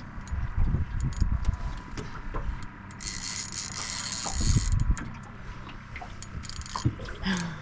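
Fishing reel being worked as a hooked fish is fought in, its gears and ratchet clicking, with low rumbling thumps and a short hiss about three seconds in.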